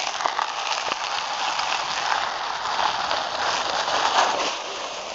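A sled sliding fast down an icy, snowy slope: a steady scraping hiss that cuts off suddenly at the end.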